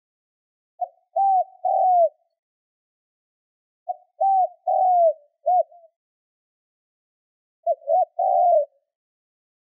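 Spotted dove cooing: three call phrases about three seconds apart, each a brief opening note followed by two or three low, arching coos.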